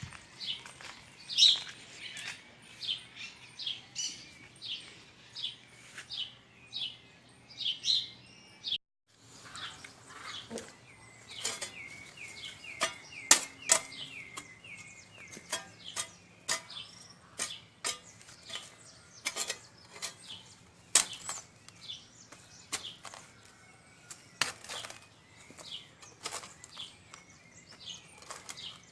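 Small birds chirping in short, sharp, repeated calls, about two a second. After a brief break about nine seconds in, the chirps continue mixed with many sharp clicks or knocks and a short trill.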